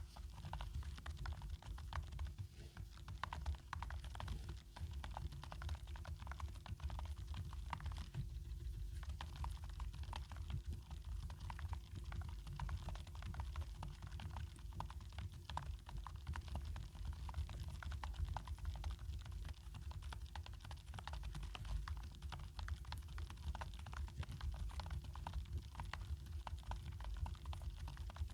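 Continuous typing on an ABKO NTP84 low-profile, low-noise membrane keyboard: a dense, uneven stream of key clicks.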